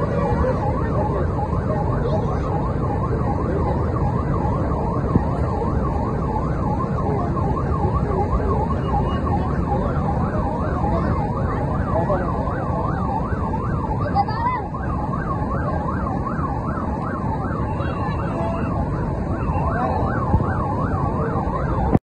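Muddy floodwater rushing in a loud, steady torrent, with a wailing tone rising and falling quickly over and over above it.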